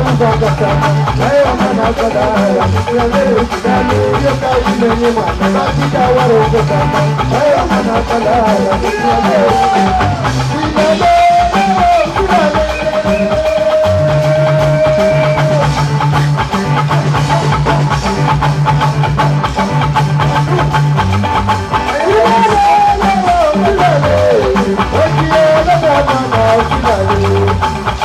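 Band music with drums, a repeating bass line and a wavering melodic lead, at a steady beat.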